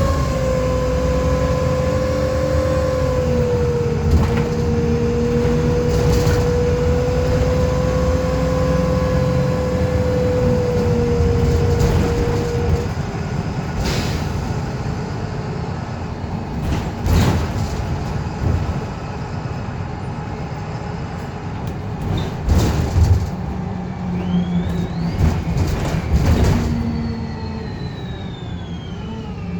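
VDL SB200 bus running, with a steady high-pitched whirring whine over the engine that dips slightly about three seconds in and fades out after about twelve seconds. Knocks and rattles come through the body, and near the end a higher whine rises and then falls.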